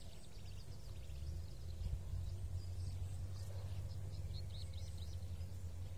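Outdoor ambience: a steady low rumble with faint, quick bird chirps coming and going throughout.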